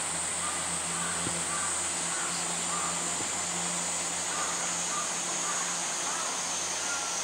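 Steady outdoor background: a constant high-pitched drone with faint, short calls repeating every half second or so behind it, over a low steady hum.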